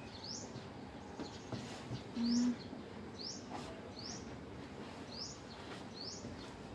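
A bird calling repeatedly, a short upward-sweeping chirp about once a second. A brief low steady hum sounds about two seconds in.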